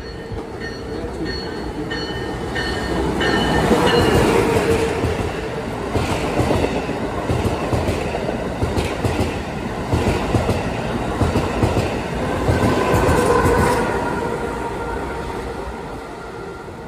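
Train rolling past on the track, its wheels clicking over rail joints, with thin high squeals from wheels on the rail. It swells loudest about four seconds in and again around thirteen seconds, then fades.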